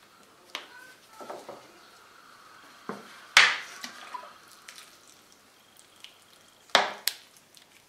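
Handling knocks and clatters as a kitchen knife is laid down on a wooden board and a plastic water bottle is picked up: a few light clicks, one sharp clack about a third of the way in, and two more sharp knocks close together near the end.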